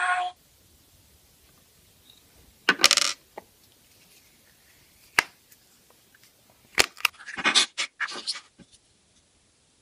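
Small plastic toys clicking and clattering as they are handled and set down on a hard tabletop, in a few short bursts of clicks and scraping separated by quiet, with a quick cluster of clicks near the end. A brief high pitched tone sounds right at the start.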